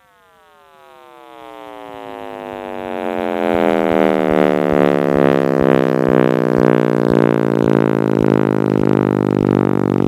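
Synthesized sonification of the Big Bang, built from the Planck telescope's cosmic microwave background spectrum: a deep drone of many overtones gliding down in pitch together. It swells up from near silence over the first three or four seconds, then holds steady and loud.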